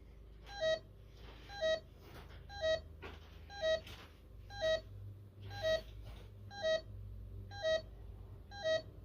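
Bosch GV4 alarm system keypad sounding its entry-delay warning: short beeps about once a second, nine in all, counting down before the alarm goes off after a door zone was tripped.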